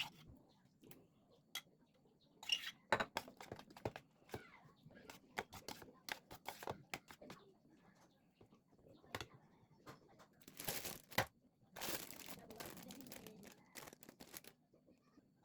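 Kitchen food-preparation handling: scattered clicks and knocks with several longer bursts of crinkling or tearing, the longest about ten to fourteen seconds in.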